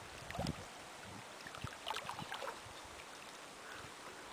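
Faint sloshing and small splashes of shallow water as a border collie wades, with the clearest splashes about half a second and two seconds in.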